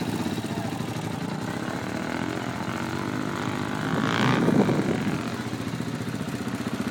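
ATV engine running, with a brief rev about four seconds in as the pitch rises and then drops back.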